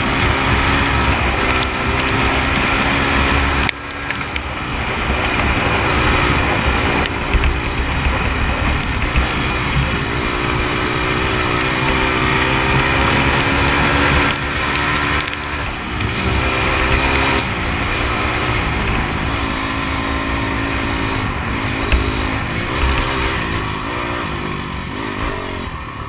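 Honda CRF four-stroke dirt bike engine under way, its pitch rising and falling repeatedly as the throttle is worked, with a brief dip about four seconds in.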